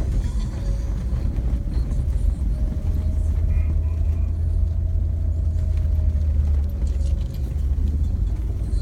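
Inside a vehicle's cabin while driving on a gravel road: a steady low rumble of engine and tyres, with a faint whine that rises slightly and then falls away.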